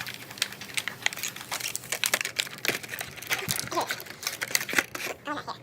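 Plastic packaging crinkling and rustling with many quick irregular clicks and taps, as the drone's accessories are handled and taken out of the box.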